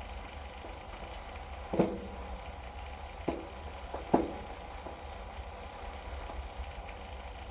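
Gas water heater with a steady low rumble. There are three sharp knocks that ring briefly: one about two seconds in, another a second and a half later, then a close pair just after.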